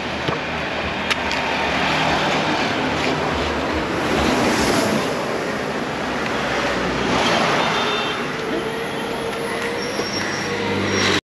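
Steady rushing noise of road traffic and a moving vehicle, with a sharp click about a second in.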